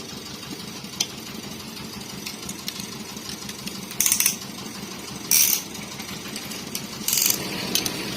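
Ratchet wrench clicking in three short bursts, about a second apart, with a few single clicks of metal tools, as bolts are run in during engine assembly.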